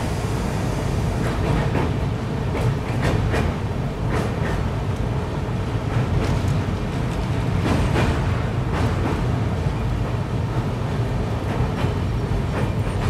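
Passenger train running along the track: a steady low rumble, with irregular sharp clicks as the wheels cross rail joints and points.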